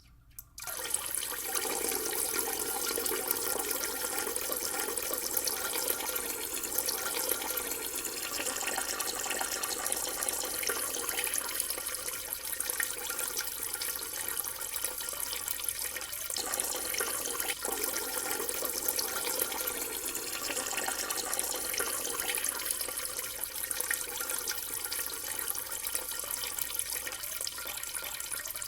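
A person urinating: a steady stream splashing into water, starting about half a second in and running without a break.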